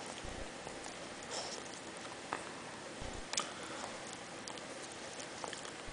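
A small dog licking and smacking its lips, irregular wet clicks and ticks. This is the constant licking of a Chihuahua/Miniature Pinscher mix during what looks like a focal seizure confined to his head.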